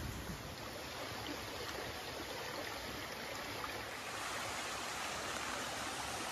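Steady rush of a flowing jungle stream.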